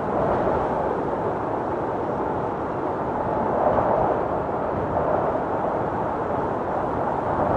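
Steady rushing noise with no tones or distinct hits, even in level throughout.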